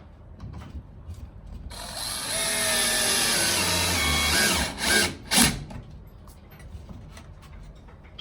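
Cordless drill with a hex (Allen) bit driving a screw into the wooden rack: the motor runs for about three seconds, then gives two short bursts as the screw is snugged down. Light handling clicks come before and after.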